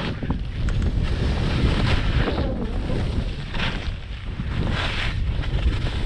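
Wind buffeting the camera microphone in a steady low rumble, with skis hissing through soft snow in three swooshes as they turn.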